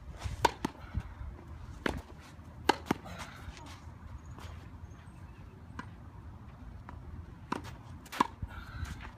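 Tennis balls struck by racket strings in a volley exchange at the net: sharp pops, several in the first three seconds and two more near the end.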